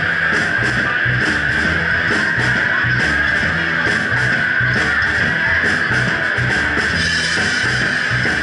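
Live rock band playing: strummed electric guitar and bass guitar over a Ludwig Vistalite acrylic drum kit keeping a steady beat.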